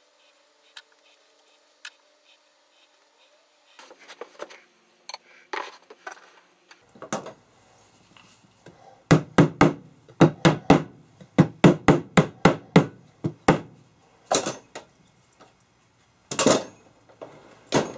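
A run of sharp knocks on wood, about two or three a second for several seconds past the middle, then a few single knocks near the end, after faint scattered clicks at the start.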